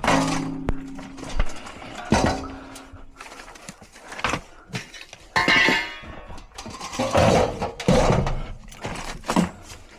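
Metal clanking and knocking from furnace blower parts and sheet metal being handled and worked with tools, several knocks ringing on briefly, with a scraping, ringing passage about halfway through.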